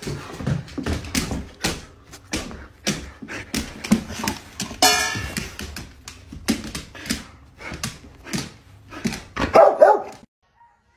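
Dog barking in a rapid string of short, sharp barks and yips. There is one drawn-out, high whining call about five seconds in, and the loudest bark comes near the end before the sound cuts off abruptly. These are demand barks at a food bowl holding only two kibbles.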